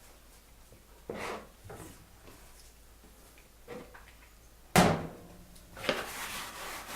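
Kitchen things being handled and moved about on a work surface: a few light knocks, then one sharp knock nearly five seconds in, followed by rustling and scraping.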